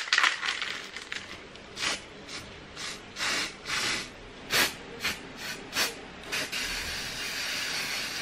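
Aerosol spray-paint can spraying in a series of short hissing bursts, then a steadier hiss near the end.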